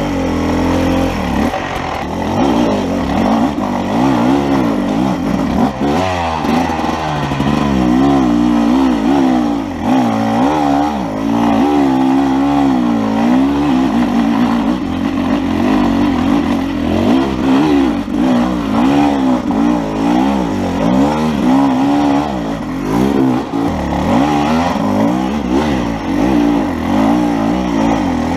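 Enduro dirt bike engine running close up, revving up and down in quick surges as the bike climbs a steep rocky trail.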